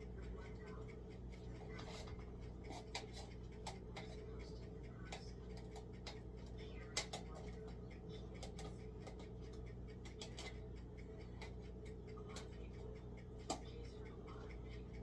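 Scattered light clicks and taps of kitchen handling at the stove, irregular and sparse, with two sharper knocks about seven seconds in and near the end, over a steady low hum.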